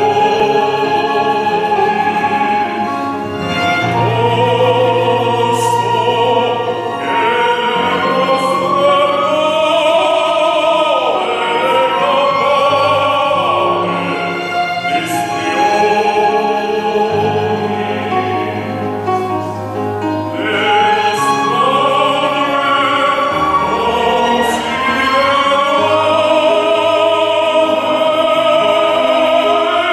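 A male opera singer sings a flowing line with wide vibrato over orchestral accompaniment.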